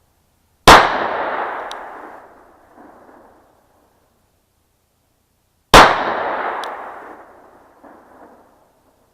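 Glock 43 9mm pistol fired twice, about five seconds apart, with 115-grain standard-load rounds. Each shot is very loud and followed by an echo that dies away over about two seconds.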